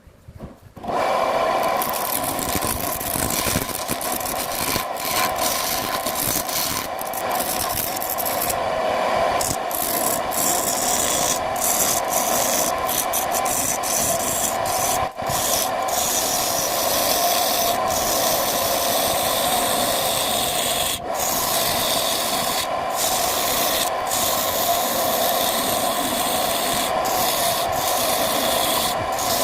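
Wood lathe running with a continuous rasping scrape as a sappanwood blank is worked on it. The sound starts about a second in and breaks off for an instant many times.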